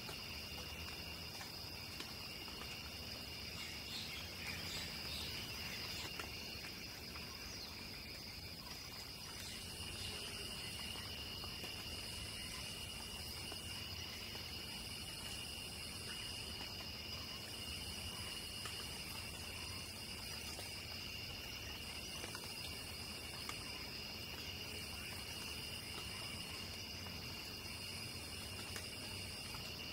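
Crickets trilling steadily in a chorus at two high pitches. About ten seconds in, a still higher insect buzz joins, coming in stretches of one to two seconds with short breaks.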